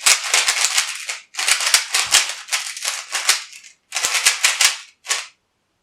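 GAN 11 M Pro magnetic speed cube being turned fast by hand on a strong magnet setting: rapid plastic clicking and clacking in several bursts, with short pauses about a second in and again near four seconds, stopping about five seconds in.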